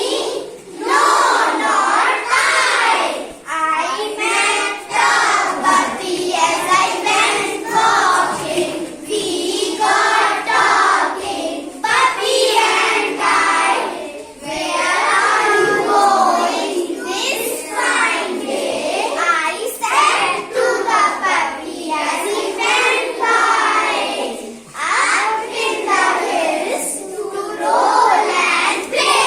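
Young children singing a poem together in a chanting chorus, with short breaths between lines.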